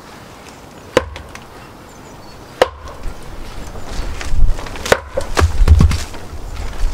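Axe with a log stuck on its blade being slammed down onto a wooden chopping block, three sharp wooden strikes about a second and a half apart, then heavier dull thuds near the end. The log will not split, which he suspects is because the wood is too wet.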